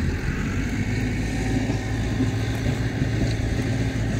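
Tractor engine running steadily with an even low hum.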